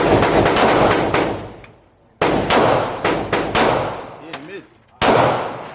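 Gunshots about two and three-quarter seconds apart, each a sharp report followed by a long ringing tail, with fainter sharp cracks between them.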